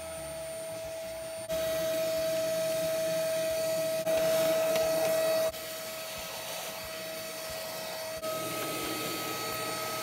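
Vacuum cleaner running with a steady whine, sucking dust through its hose nozzle from a refrigerator's condenser coils and compressor compartment. It gets abruptly louder and softer several times as the nozzle moves over the coils and panel.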